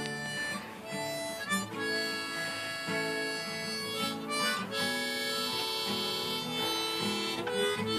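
Harmonica in a neck holder played in held notes and chords over an acoustic guitar.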